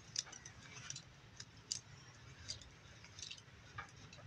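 Faint, irregular light clicks and ticks, about eight in all and spaced up to a second apart, over a faint low hum.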